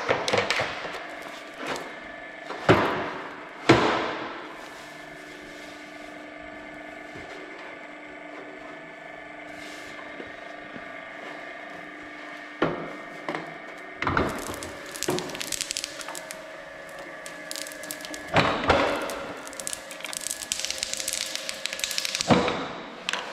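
Stainless steel pipe being handled on a pipe seaming machine: two sharp metallic knocks with a short ring a few seconds in, then dense crinkling and crackling of the pipe's plastic film wrapping about halfway through and again near the end, over a steady hum.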